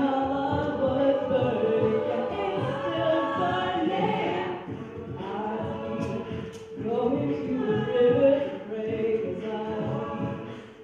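A cappella vocal group singing in harmony, several voices and no instruments.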